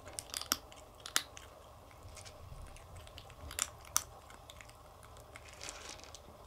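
Calico kitten crunching dry kibble, a run of irregular small crunches with a few louder ones scattered through.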